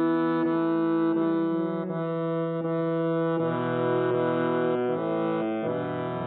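Syrnai (Kazakh button accordion) playing slow held chords with a melody on top, the chord changing every second or two.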